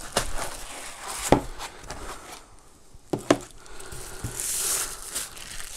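Unboxing handling noise as a monitor light bar is lifted out of its cardboard box and foam insert: rustling, with three sharp knocks, one about a second in and two close together just past three seconds, then a soft hiss near the end.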